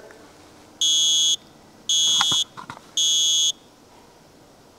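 First Alert smoke detector's piezo horn beeping three times, each beep a steady shrill tone about half a second long, about a second apart. The repairer judges it not loud enough and takes this for a sign that the unit has gone bad.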